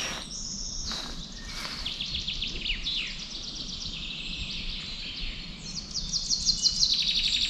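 Woodland songbirds singing: rapid trilled phrases of short, high notes, several overlapping, busier and louder near the end.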